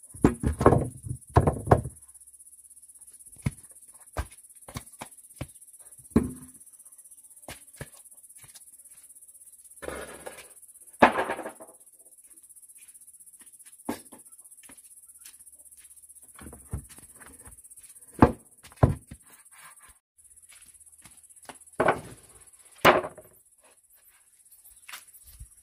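Scattered knocks and thuds of objects being handled, a few louder clusters among lighter taps, over a steady high-pitched hiss.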